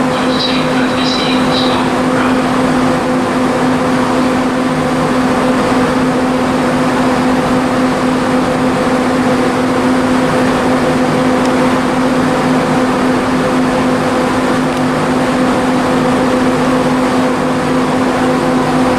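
Steady electrical hum with a few fixed tones from Southeastern Class 395 high-speed electric trains standing at the platform with their onboard equipment running. A few short high chirps sound in the first two seconds.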